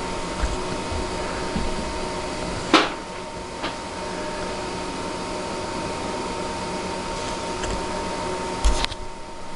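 Steady machine hum with a thin steady whine, like a fan or air conditioner running, under light clicks and knocks of hands untwisting the wire pairs of a Cat 5 cable. A sharper knock comes about three seconds in and another near the end.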